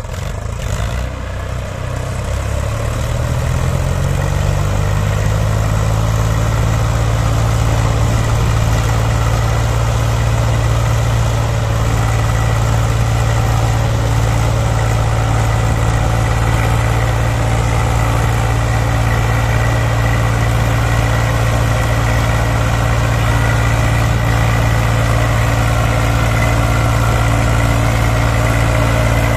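Tractor diesel engines of a Swaraj 735 FE and a Mahindra B275 working hard under load while towing a tractor and loaded trolley out of sand. The engine note rises in pitch and loudness over the first few seconds, then holds steady.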